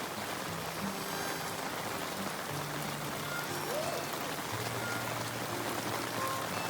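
Steady heavy rain falling, with soft background music of held notes over it.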